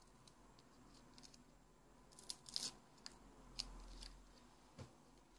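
Faint paper crinkling with a few small crackles and clicks, bunched in the middle: a small paper tag being handled and stuck down onto a scrapbook journal page.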